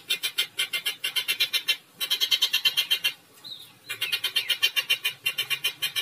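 Caged songbird giving a fast, rattling chatter of short high notes, about eight or nine a second. It breaks off briefly about two seconds in and again for most of a second just after three seconds.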